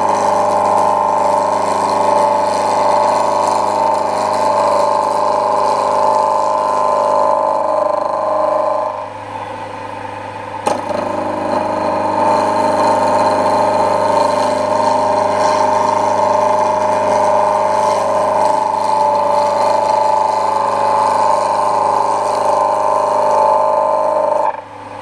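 Gouge cutting a spinning wood blank on a lathe running at about 1500 RPM: a steady, even cutting sound over the lathe's motor hum, a pretty smooth cut. The cutting sound drops away for about a second and a half about nine seconds in, then resumes, and stops just before the end.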